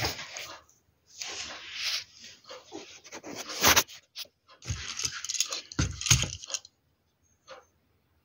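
Handling of a small die-cast model car and its glossy paper booklet: bursts of paper rustling and scraping, with a few sharp knocks as the model is moved and picked up; quiet near the end.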